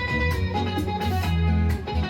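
Bachata band playing an instrumental stretch: picked guitar melody over a low bass line.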